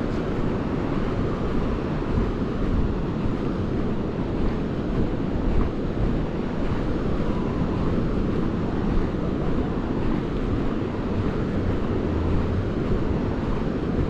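Steady wind rumble on the microphone, mixed with sea surf breaking on the beach, with no separate events standing out.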